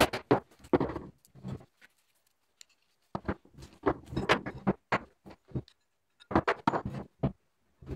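Old wooden file handle being split and pulled off the steel tang: quick runs of sharp cracks, knocks and clatter of splintering wood and tool contact, in three spells with short pauses between.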